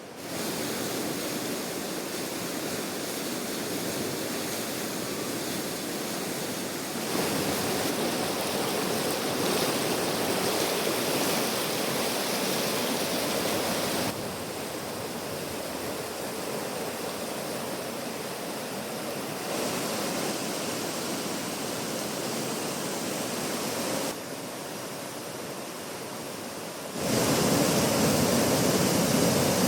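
Río Majaceite rushing, a steady noise of fast-flowing water. Its loudness and tone change suddenly several times, about every five to seven seconds.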